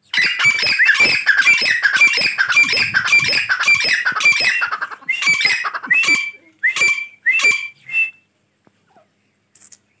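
Grey francolin calling loudly: a fast run of harsh, repeated notes for about five seconds, then slower, separate calls that stop about eight seconds in.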